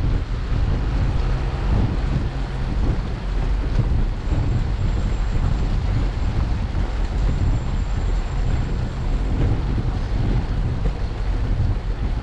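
Steady wind rumble buffeting a bicycle-mounted GoPro's microphone while riding in the rain.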